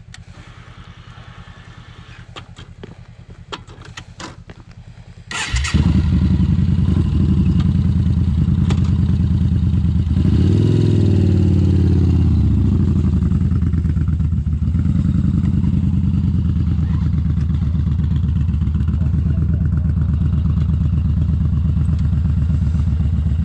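A cruiser motorcycle's engine is started about five seconds in, catching almost at once, then revved up and back down once and left running at a steady idle. Before the start there are a few light clicks and clatter.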